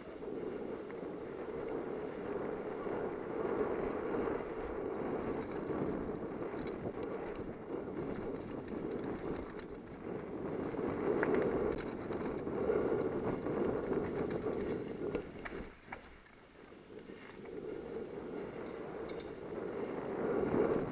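Mountain bike riding fast over a dirt singletrack: a steady rumble of tyres on the trail, with scattered clicks and rattles from the bike. The noise drops for a moment about three-quarters of the way through, then picks up again.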